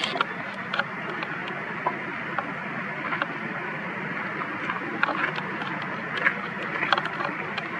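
Steady outdoor background noise, a low rumble and hiss, with scattered faint clicks and ticks throughout.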